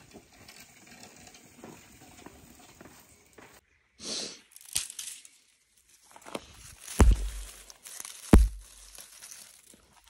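Dry twigs and branches being snapped and handled while kindling is laid in a fire pit, with light crackling and rustling and two sharp cracks with a thud about a second and a half apart near the end.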